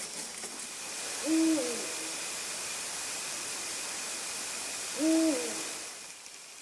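An owl hooting twice, about four seconds apart: each hoot is a single low note, held and then dropping off at the end, over a steady hiss.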